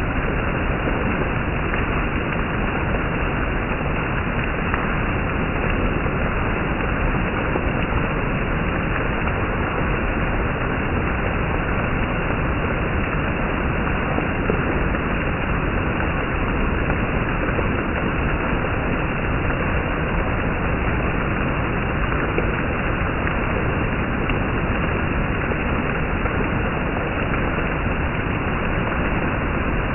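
Steady heavy monsoon rain, an even, unbroken downpour with no single drops or breaks standing out.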